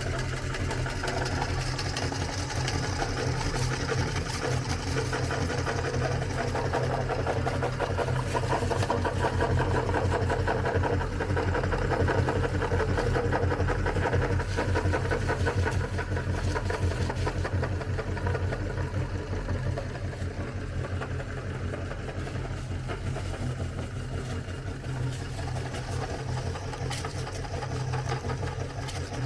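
Meat grinder motor running steadily with a low hum while grinding cookies, with many small crackles through it.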